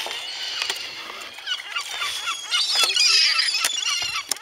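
Gulls calling, many short overlapping squawks and yelps that swoop in pitch, thickest about three seconds in, with a few sharp clicks among them.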